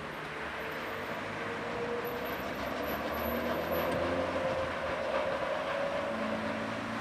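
Tram passing on a curve through a street junction: steady running noise, louder about halfway through, with a held tone that rises slowly in pitch.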